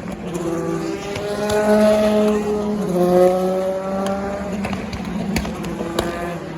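Race car engine accelerating: its pitch climbs steadily, drops with an upshift about three seconds in, then climbs again. A couple of sharp cracks come near the end.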